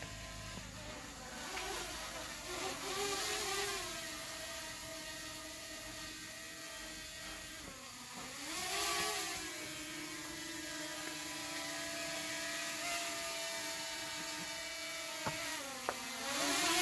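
Small quadcopter drone's propellers whirring as it descends, a steady whine that dips in pitch and climbs back a few times as the motors change speed. Two short clicks near the end.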